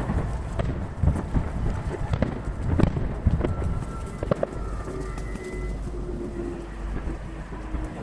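Fireworks bursting in quick succession, sped up to three times normal speed, with sharp cracks over a low booming rumble in the first half. A few faint steady tones follow in the second half.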